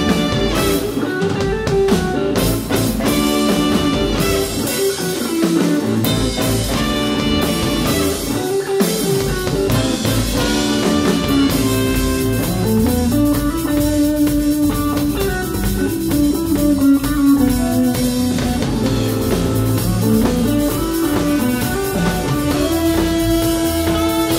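Live band playing: trumpet, tenor saxophone and alto saxophone blowing sustained, moving melody lines over electric guitar, electric bass and drum kit.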